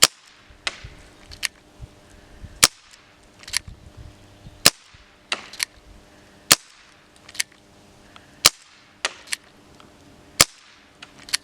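An ASG Dan Wesson 8-inch CO2 airsoft revolver firing six sharp shots, spaced about two seconds apart, with fainter clicks between the shots.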